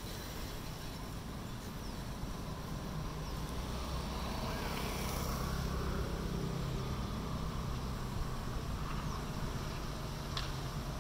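A low, steady, distant vehicle rumble that swells a little around the middle.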